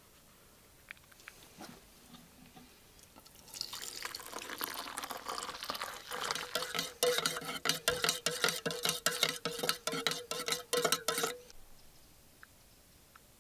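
Hot water poured from a kettle into a stainless steel mug, then a spoon stirring and clinking fast against the mug's sides, the mug ringing, for about five seconds before it stops abruptly.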